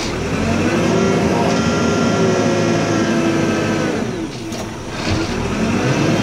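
Backhoe loader's diesel engine, heard from the operator's seat, revving up and holding high. It drops back about four seconds in, then climbs again near the end.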